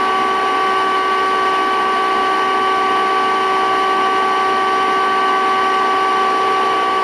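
Vacuum cleaner motor running at a steady speed: a constant high whine over the hiss of rushing air, with no change in pitch or level.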